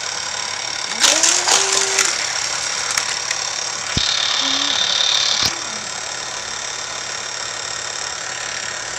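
Die-cast toy cars pushed by hand and clattering along a plastic race track, with a loud rattle about a second in and a short rising voice-like sound over it. A high buzzing whir runs for about a second and a half, starting and stopping with a click.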